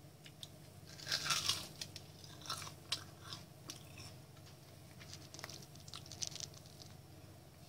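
Crisp fried zucchini patties crunching and crackling as they are broken apart by hand, in several short clusters of crunches. The loudest cluster comes about a second in, over a faint steady low hum.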